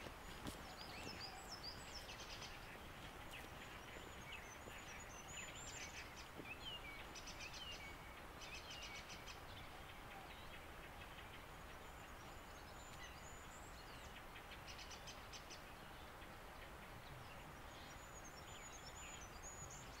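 Songbirds singing faintly in a spring forest: scattered high chirps and whistled phrases with short, rapid trills, over a steady faint background hiss.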